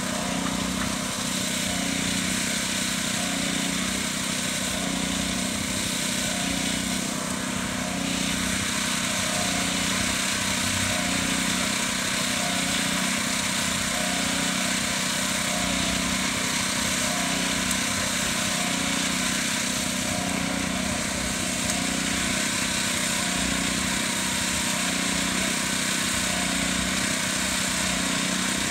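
Small petrol engine, most likely on the mixer, running steadily at a constant speed, with a slow, even pulse in its tone.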